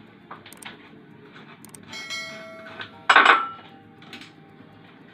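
Metal kitchen utensils knocking and clinking against a bowl and strainer while onion is strained for a cough remedy. A ringing metallic note comes about two seconds in, then a loud clatter about three seconds in.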